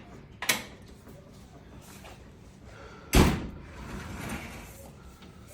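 Metal oven parts knocking as the igniter assembly is worked through the panel: a sharp click about half a second in, then a louder thud about three seconds in, trailing off in a short rattle.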